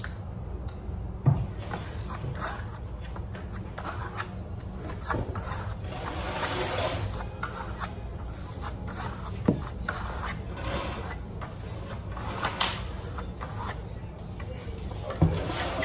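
A plastering trowel scraping and rubbing wet plaster across a board in repeated strokes, with a couple of sharper knocks of the tool about a second in and past the middle.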